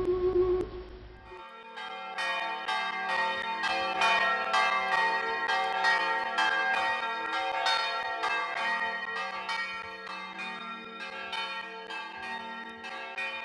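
A held, flute-like musical tone stops about a second in. Church bells then ring in a quick, uneven run of overlapping strikes, about three a second, each leaving a long ring.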